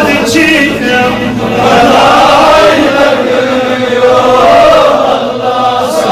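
Man chanting a naat, a devotional poem in praise of the Prophet, in long, wavering melodic lines.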